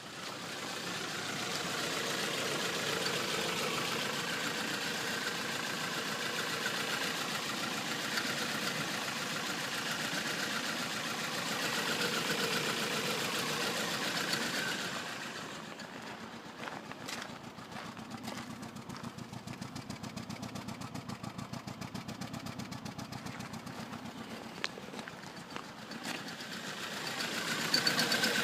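Toyota Corolla 1.8 four-cylinder engine running, an engine that has logged multiple-cylinder misfire codes P0300–P0304. The engine runs steadily for the first half, drops to a quieter idle with a rapid, even pulsing about fifteen seconds in, and grows louder again near the end.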